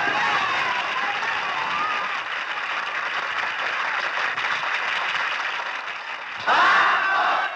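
A cabaret audience clapping steadily. About six and a half seconds in, the crowd breaks into loud shouting and cheering.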